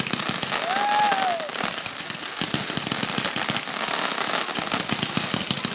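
Fireworks going off: dense, rapid crackling and popping throughout, with a short tone that rises and falls about a second in.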